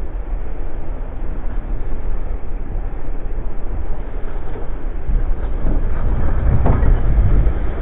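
A vehicle driving through mud on a rough woods road: a loud, steady low rumble of engine and running gear.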